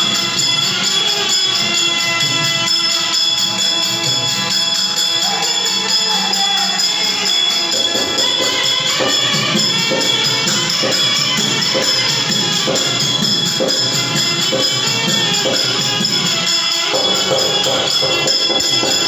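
Live accompaniment from a village stage-drama troupe: steady held notes with a constant jingling, and a drum beat coming in about eight seconds in.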